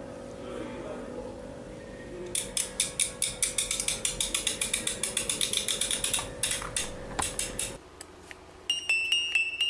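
A wind-up music box being wound: rapid, even ratchet clicks, about five a second, for about five seconds. After a brief pause its chiming melody starts near the end. A low steady hum under the clicks cuts off just before the pause.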